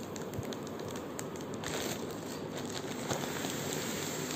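Foil balloon crinkling as it is slowly pressed flat by hand, with air hissing out through an empty pen refill pushed into its valve. The hiss grows a little stronger about two seconds in.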